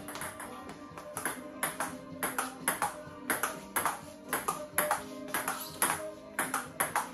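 Table tennis rally: the celluloid ball clicking off paddles and the table, a few sharp pings a second in an uneven rhythm, over background music.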